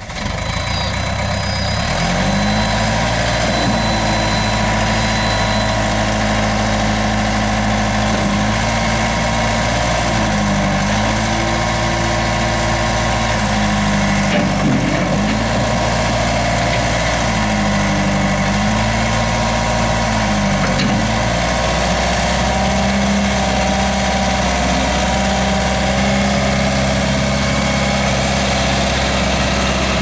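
Case 1840 skid steer loader's diesel engine running, its pitch dipping and recovering several times as it takes load from the loader hydraulics and drive, then holding steadier in the last part.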